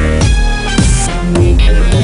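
Electronic dance music with a heavy bass and steady beat, laid over the footage as a soundtrack.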